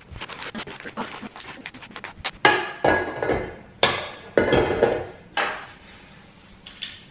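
A tablespoon knocking and scraping against a mixing bowl while brown soft sugar is spooned out: a quick run of small clicks, then several louder knocks about a second apart.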